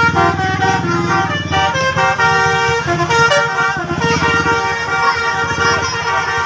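Bus telolet horns, a bank of musical air horns on a bus, sounding a tune of several notes at once that change in quick steps, over a bus engine's rumble.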